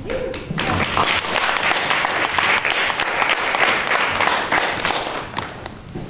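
Audience applauding: many hands clapping together, swelling up about half a second in and dying away near the end.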